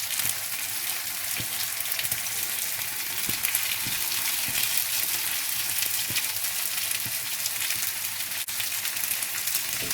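Pork chops and corn frying in a pan: a steady sizzle with faint small pops.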